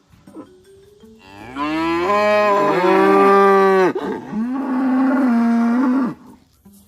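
A cow mooing loudly twice: one long moo of about two and a half seconds, then a second, slightly shorter moo.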